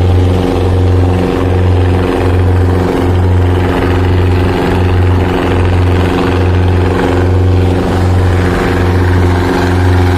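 Motorboat engine running steadily, with a low throb pulsing about one and a half times a second.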